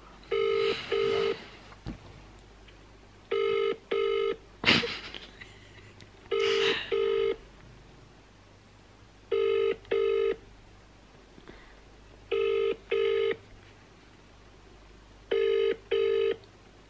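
British double ring-back tone of an outgoing phone call, ringing unanswered: pairs of short burrs repeating about every three seconds, six pairs in all. A single sharp knock comes about five seconds in.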